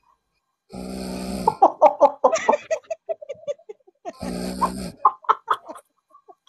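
A sleeping person snoring: two rasping snores about three seconds apart, each followed by a run of short choppy noises as the breath goes out.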